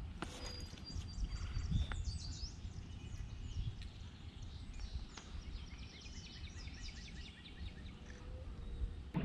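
Small birds chirping and whistling repeatedly over a steady low rumble of outdoor background noise.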